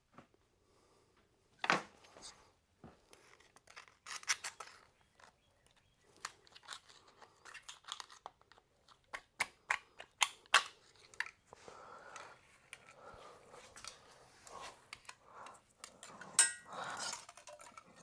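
Scattered metal clicks and clinks of engine parts and hand tools being handled during a teardown, with a brief ringing clink near the end.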